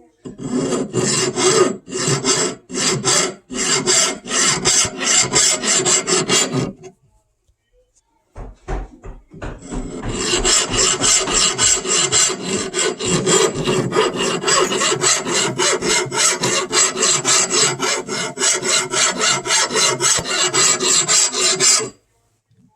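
Steel file rasping back and forth across the tip of a pickaxe head, sharpening it. At first it goes in separate strokes, about two a second. It stops about seven seconds in, then resumes with faster, steadier strokes until near the end.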